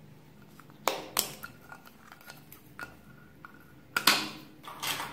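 A small round plastic slime container handled in the hands and its lid pulled off: sharp plastic clicks and taps, with a louder cluster of clacks and scraping about four seconds in as the lid comes away.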